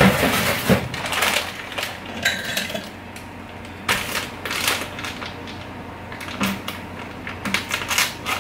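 Plastic bag of frozen fried rice being handled and opened: irregular crinkling of the plastic with sharp clicks and rattles, loudest at the start and again near the end.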